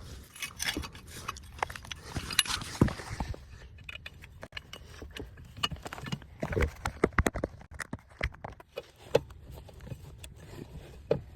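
Irregular knocks and metallic clinks of tire-changing tools, lug nuts and the wheel being handled.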